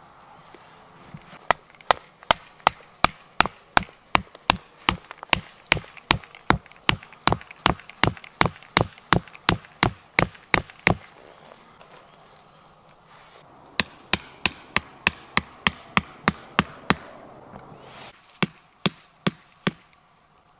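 Wooden tent stake being hammered into the ground: sharp, evenly spaced knocks, about two and a half a second. A long run of about two dozen strikes comes first, then a pause, then about ten more, and four near the end.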